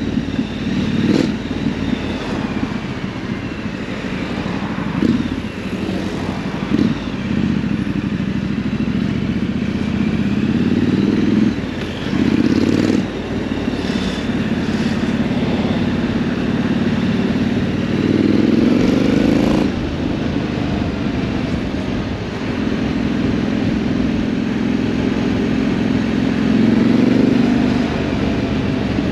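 Triumph Scrambler 900's parallel-twin engine running as the bike is ridden, its pitch rising several times as it accelerates and dropping back between gears.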